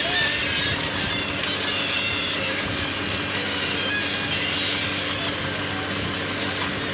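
Heavy road-building machinery running: a steady engine drone under a loud, rough grinding noise.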